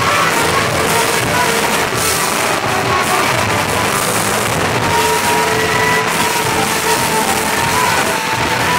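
Live band playing, with electric guitar and keyboard, loud and steady as picked up by a phone with poor sound quality.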